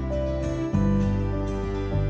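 Soft instrumental background music with a gentle, new-age feel, changing chord a little under a second in.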